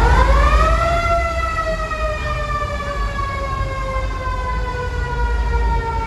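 A mechanical siren winds up, climbing steeply in pitch for about a second, then slowly winds down in a long falling tone, over steady low background noise.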